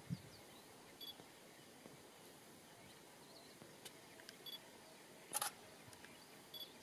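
Near silence with a few faint, short high chirps and one sharp click about five seconds in.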